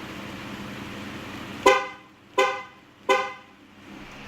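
Dodge Grand Caravan horn chirping three times, about 0.7 s apart, each chirp sharp and quickly fading, over a steady hum. The three chirps fit three presses of the key fob's lock button, which is the remote-starter command.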